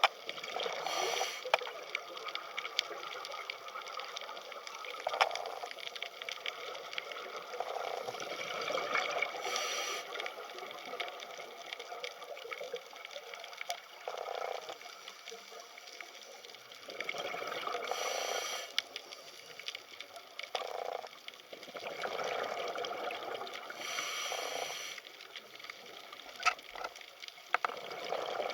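Underwater sea ambience: a continuous hiss of moving water with scattered small clicks and crackles, swelling into louder bubbling gushes every few seconds.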